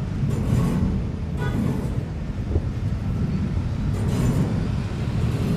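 Electric passenger train rolling slowly over the railway bridge, a steady low rumble with a few brief higher-pitched moments, the loudest about a second and a half in.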